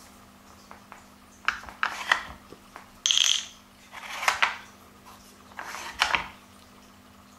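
Nina Ottosson wooden Dog Casino puzzle being handled: its small wooden drawers slide and clack against the box in four short bursts of knocks and scrapes.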